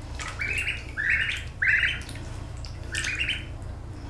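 Ducklings peeping, about four short clusters of shrill calls.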